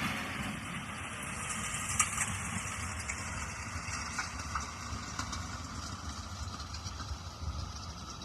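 A heavy vehicle's engine running steadily with a low, even rumble, and a single sharp click about two seconds in.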